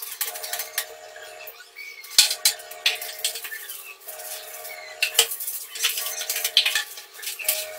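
Stiff-bristled hand brush scrubbing soapy ceramic wall tiles in short, scratchy strokes. A faint hum comes and goes about every two seconds behind it.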